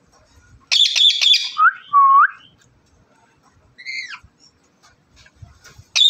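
Indian ringneck parrot (rose-ringed parakeet) giving a harsh, rapid screech about a second in, then two short whistles that hook upward. A single downward-sliding call follows about four seconds in.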